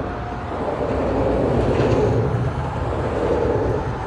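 Traffic crossing the road bridge overhead: a continuous low drone of tyres and engines that swells and eases as vehicles pass.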